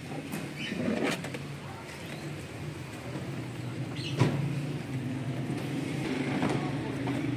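A steady low mechanical hum, like an idling engine or motor, with a few short clicks and knocks; the sharpest knock comes about four seconds in.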